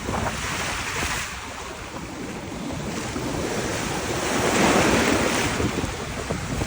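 North Sea surf: waves breaking and surging around the wader, swelling about a second in and loudest a little past the middle, with wind buffeting the microphone.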